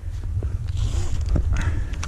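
Climbing rope and hardware rustling and clicking as a tree climber pulls up on the rope, over a heavy low rumble on the microphone, with a brief squeak near the end.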